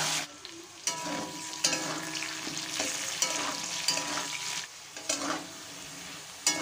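Potato wedges sizzling in hot mustard oil in a metal kadai, with a metal spatula scraping and clinking against the pan again and again as the potatoes are stirred and turned.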